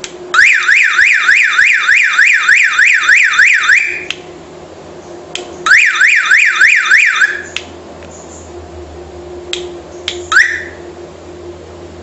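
Car alarm siren of a homemade PIC16F676 alarm, warbling rapidly up and down at about three sweeps a second for about three and a half seconds. It stops, sounds again for about a second and a half, and then there are a few clicks and a brief rising chirp.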